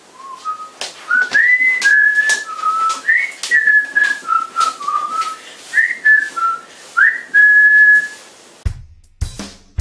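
A person whistling a tune, one note at a time with slides between notes, over scattered light ticks. A drum beat comes in near the end.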